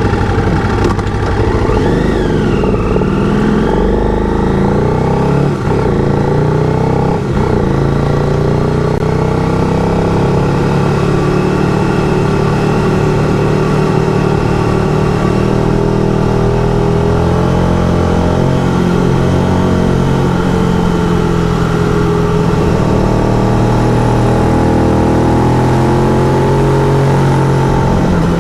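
Motorcycle engine running under way, its pitch shifting up and down as it rides.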